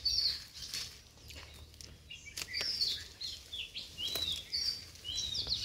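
Small birds chirping repeatedly in short, high notes, over brief rustles and snaps of leafy sprigs being plucked by hand from a shrub.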